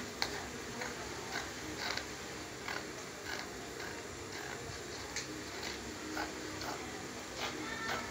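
Scissors snipping through cotton print fabric: irregular short clicks of the blades, about one or two a second, over a steady low background hum.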